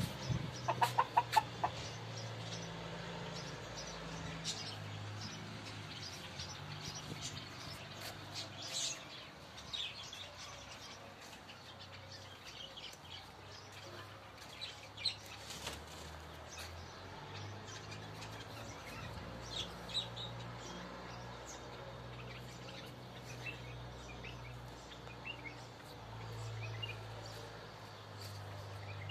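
Small birds chirping on and off, with a short run of chicken clucks about a second in, over a low steady hum.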